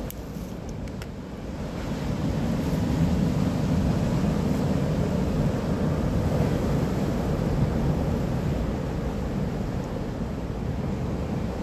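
Wind buffeting the microphone outdoors: a steady low rumbling noise that grows louder about two seconds in and stays up, with a few faint ticks in the first second.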